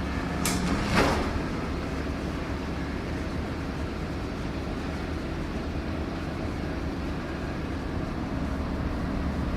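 A heavy-equipment engine running at a steady low drone, with two short clatters about half a second and a second in.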